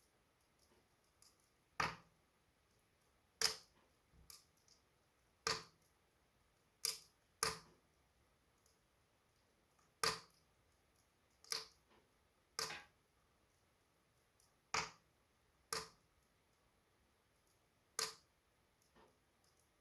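Wood fire in a fireplace crackling: sharp, irregular pops about every one to two seconds over an otherwise quiet background, with a few fainter snaps in between.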